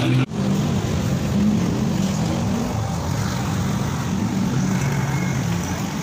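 Small commuter motorcycle's engine running steadily on its stand, with a brief break in the sound just after the start.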